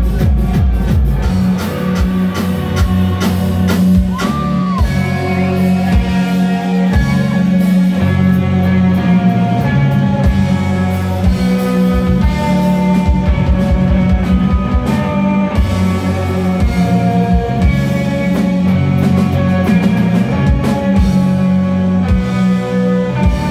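Live rock band playing loud, with electric guitar, bass, keyboard and drum kit over a steady driving bass line and drum beat.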